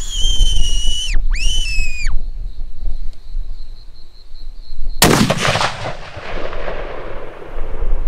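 A button fox whistle blown twice, two high squealing calls of about a second each that drop in pitch as they end. About five seconds in comes a single 7mm Remington Magnum rifle shot, the loudest sound, whose echo rolls away over the next few seconds.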